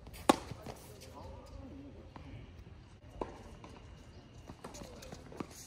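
Tennis racket striking the ball: a sharp pop about a third of a second in, the loudest sound, and a second, quieter hit about three seconds in. Fainter ticks of ball bounces and shoes on the hard court fall between the hits.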